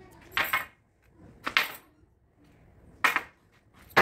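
A stick knocking against a hard surface: three sharp knocks at uneven intervals, the last about three seconds in.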